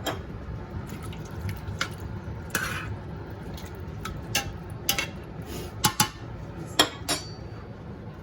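Kitchen dishes and utensils clinking and knocking, a dozen or so separate strikes with the sharpest near the end, over a steady low hum.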